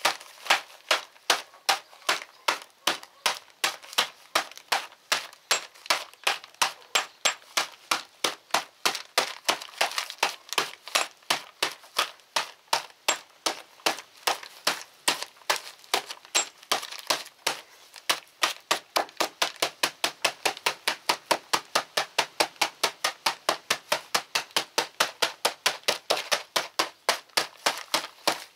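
Steady rapid hammering: a claw hammer beating frozen, brittle bitumen chunks through a plastic bag on a hard floor, crushing them to powder. About three sharp blows a second, a little quicker in the second half.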